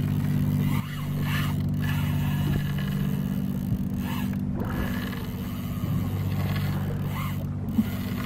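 Boat's motor idling steadily, with a few short zipping scrapes over it.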